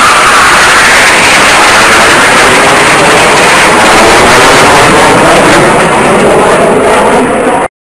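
Loud, steady jet roar from a Turkish Stars Northrop NF-5 fighter's twin turbojets as it flies its display. The pitch of the rush slides up in the first second and later sinks lower, then the sound cuts off suddenly near the end.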